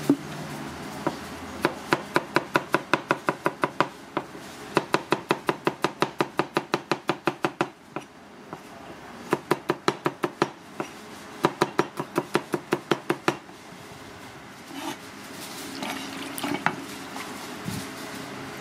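A cleaver chopping rapidly on a cutting board in fast runs of about six strokes a second, with short pauses between runs. The chopping stops a little past two-thirds of the way through, leaving a few softer knocks.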